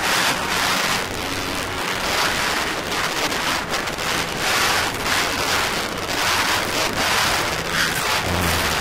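Live rock band playing loud in a packed small venue, so overloaded on the camera's microphone that it comes through as a dense, steady wall of noise, with only faint low notes showing through.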